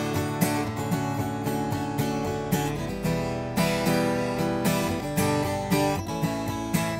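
Solo acoustic guitar playing chords in a steady rhythm of picked and strummed strokes, with no singing.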